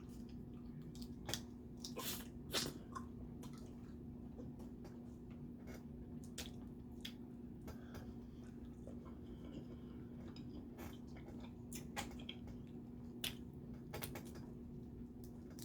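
Crawfish being peeled and eaten close to the microphone: scattered sharp clicks of shell cracking and wet chewing, loudest about two seconds in, over a steady low hum.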